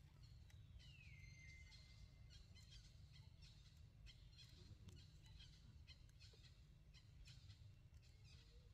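Near silence: faint outdoor ambience with a low rumble, scattered faint high chirps, and one faint whistle falling in pitch about a second in.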